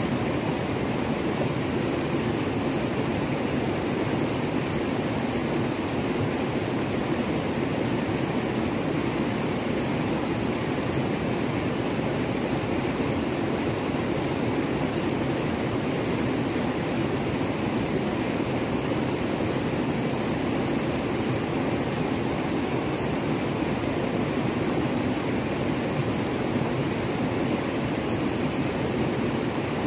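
River rapids rushing over rocks just below an irrigation weir: a steady, unbroken sound of white water.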